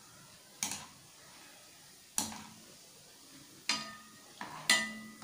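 A stainless steel wire skimmer clinking against a frying pan about four times, each strike a second or so apart, as fried gulab jamun balls are turned in the oil. The last two clinks ring briefly like struck metal.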